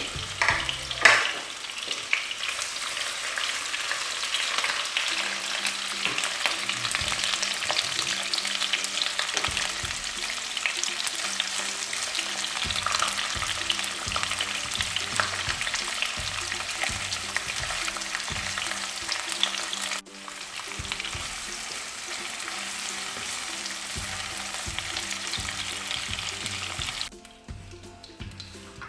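Capsicum and onion pieces sizzling as they fry in hot oil in a pan, with a sharp clack about a second in. The sizzling cuts off near the end, leaving soft background music.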